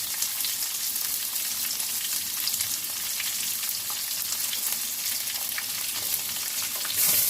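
Shallots and whole spices sizzling in hot oil in a pan: a steady frying hiss with scattered crackles, getting louder near the end.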